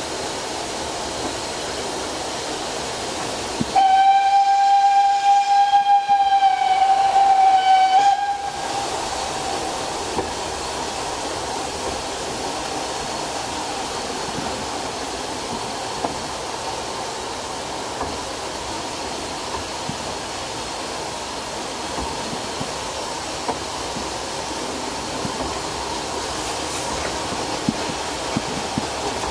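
Narrow-gauge steam locomotive's whistle giving one long blast of about four seconds, dropping slightly in pitch at its end, over the steady running noise of the train, heard from an open carriage balcony.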